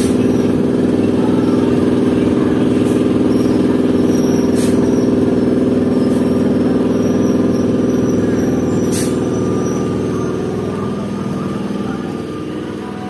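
EMU local train running with a steady electric hum and rumble as it slows along a station platform, with a couple of sharp clicks, the sound easing off near the end as the train comes to a stop.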